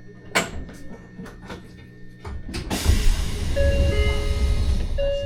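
Train door chime (the Eidan chime of former Teito Rapid Transit Authority subway cars) sounding a two-note descending ding-dong about 3.5 s in and starting again near the end, over a low rumble. Before it come a run of sharp clicks and a sudden burst of hiss.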